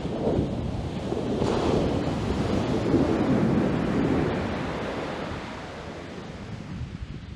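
Ocean surf washing up the beach, swelling about a second and a half in and slowly easing off, with wind buffeting the microphone.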